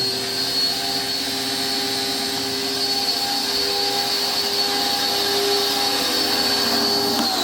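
RYOBI 1600 PSI electric pressure washer's motor running steadily with a high whine. This is the sign that the new GFCI plug has cured the fault. Right at the end the motor begins to wind down, its pitch falling.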